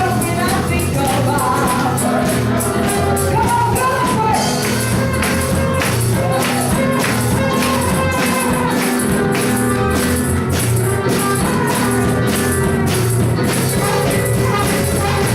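Gospel praise music with a tambourine keeping a steady beat and voices singing over the band.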